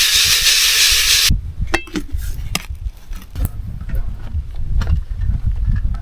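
A loud steady hiss that cuts off abruptly about a second in, followed by low wind rumble on the microphone with a few faint clicks.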